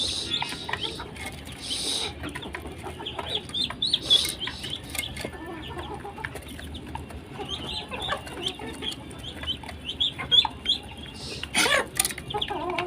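Young domestic fowl, ducklings and chicks, peeping in many short high calls, mixed with clucking. A short clatter sounds near the end.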